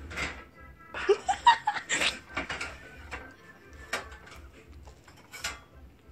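Pop music playing in the background while a person laughs in short bursts for about two seconds, starting about a second in. Two sharp knocks come later.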